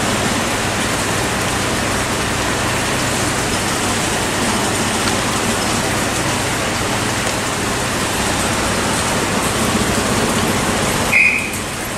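Steady hiss of rain on a station platform over the low, steady hum of a Class 375 Electrostar electric train standing at the platform. A single short high beep sounds near the end, and the hiss is a little quieter after it.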